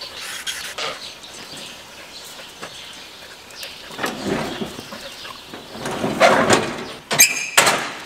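Steel sheep-turning cradle being worked: metal scraping and rattling that gets louder in the second half, with a short high squeak near the end.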